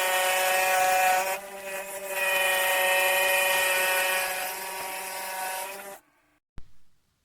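Scroll saw running with a steady motor hum and blade buzz. It dips briefly about a second and a half in, then is switched off and stops abruptly near the end, followed by a single short knock.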